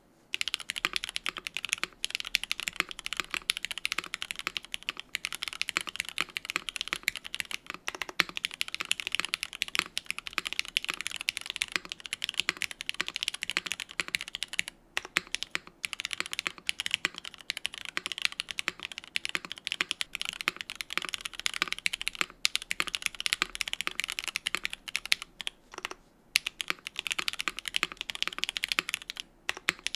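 Fast, continuous typing on a Suisei65 R2 custom mechanical keyboard with lubed, respringed Cherry MX Black Hyperglide linear switches on an aluminium plate, GMK keycaps and polyfill dampening in the case. Dense rapid keystrokes begin about half a second in and go on with a few brief pauses.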